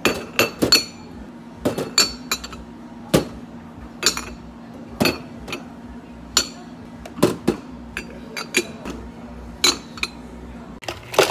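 Dishes and glassware clinking and knocking as they are handled at a cafe counter. There are about twenty sharp, irregular strikes, each with a brief ringing, and the loudest comes at the very end.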